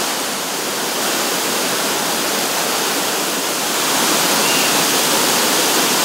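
Waterfall pouring down a steep rock face: a steady rush of falling water.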